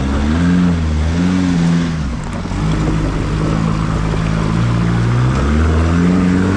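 Four-wheel drive's engine working hard up a steep, rutted dirt climb, its revs rising and falling over and over as the driver feeds and eases the throttle.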